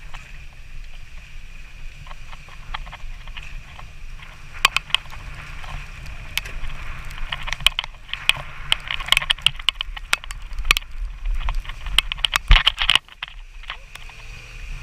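Low road rumble and wind noise on a camera mounted outside a car driving slowly over a rough, wet road, with many sharp taps against the camera, thickest in the second half.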